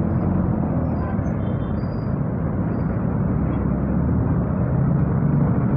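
Motorcycle engine running steadily under the rider, with road and traffic noise, picked up through an earphone microphone.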